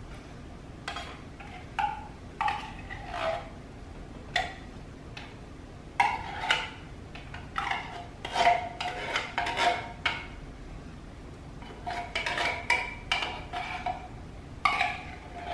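A metal spoon scraping and clinking against the inside of a tin can, scooping thick condensed soup out into a slow cooker. The short scrapes and taps come in bunches, with a brief ringing of the can.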